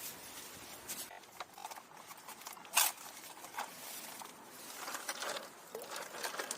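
Rustling and light clicks of something being handled, with one louder scrape a little before three seconds in.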